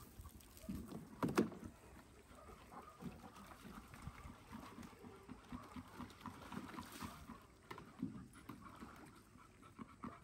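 A German Shepherd moving about and lying down in a plastic paddling pool, the water sloshing and splashing irregularly, with a sharp knock about a second in.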